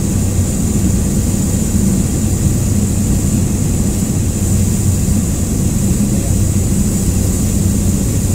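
Cessna light aircraft's engine and propeller running steadily in cruise, heard inside the cabin as a constant low drone with a hiss of airflow over it.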